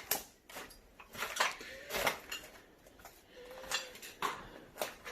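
Hard objects clinking and knocking, as when debris is stepped on or moved: about six sharp, irregular clinks, a few leaving a brief ring.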